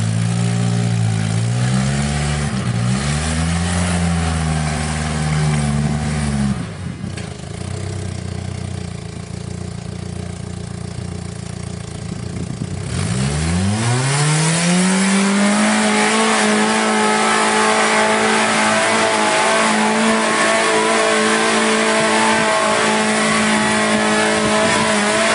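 Rock-crawler buggy's engine revving in rising and falling blips, dropping quieter about six seconds in. About thirteen seconds in it revs sharply up and then holds high, steady revs under load as the buggy climbs a near-vertical rock wall.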